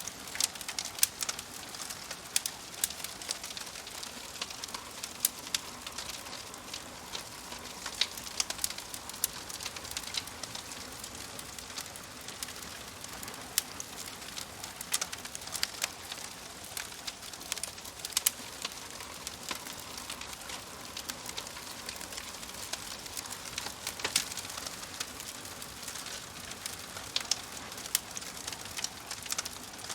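Wood fire crackling in a fireplace: a steady soft hiss with frequent irregular sharp pops and snaps.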